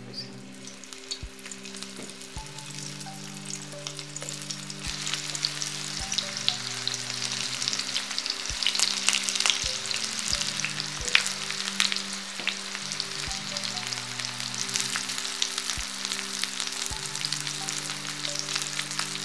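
Slices of steamed colocasia-leaf roll (alu vadi) shallow-frying in hot oil in a kadhai, a steady sizzle full of sharp crackles. The sizzle grows louder a few seconds in as more slices go into the oil.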